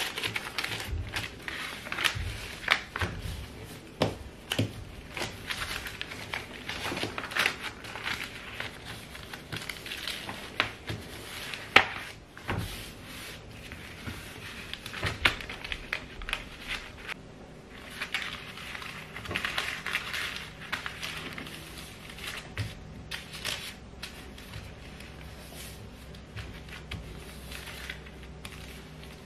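Paper rustling and crinkling as sheets of paper and a notebook are handled and smoothed on a desk, with scattered small taps and clicks.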